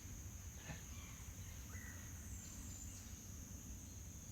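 Steady high-pitched drone of insects, with a few faint woodpecker calls about a second and two seconds in.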